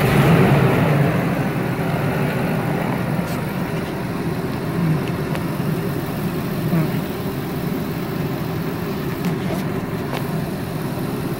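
A GM 8.1-litre Vortec V8 just started, loudest for about the first second and then settling into a steady, even idle. It runs with no misfires: the dead cylinder 6 fires again now that the engine computer (PCM) has been replaced.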